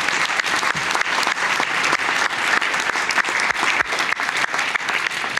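Audience applauding: dense, even clapping from a roomful of people.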